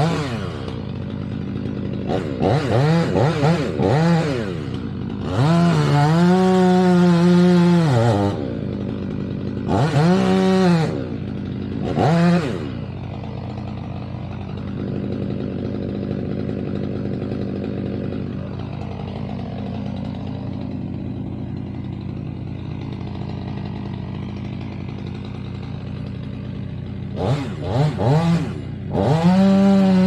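Stihl MS 500i fuel-injected two-stroke chainsaw cutting into a tree trunk. It revs up to full throttle and back down in several bursts, then runs lower and steadier for a long stretch in the middle. Near the end it revs up again and holds full throttle.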